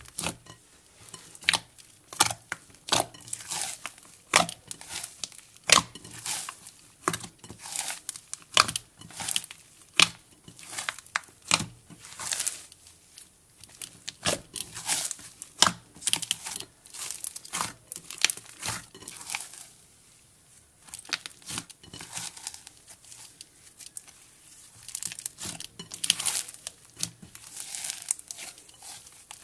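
Cloud and jelly slime being squished, stretched and kneaded together by hand, giving irregular crackles and pops, a few each second, with a short lull about twenty seconds in.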